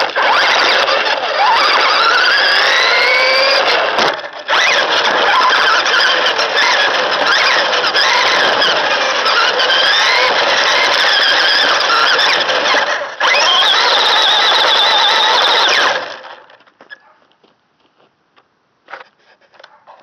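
LaTrax Teton electric RC truck driving over dirt, leaves and gravel, heard from a camera riding on it: the motor and gears whine, rising and falling in pitch with the throttle, over loud noise from the chassis and tyres. It cuts out briefly about four seconds in and again around thirteen seconds, then stops about sixteen seconds in, leaving only a few faint ticks.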